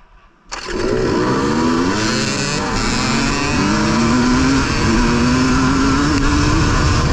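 Dirt bike engine cutting in suddenly about half a second in, then running hard with revs climbing and dropping again and again as it shifts up through the gears.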